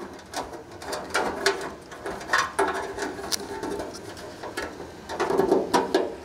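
Irregular clicks, rustles and light knocks of a pellet grill's control board and its wiring harness being handled and pushed back into the opening in the hopper.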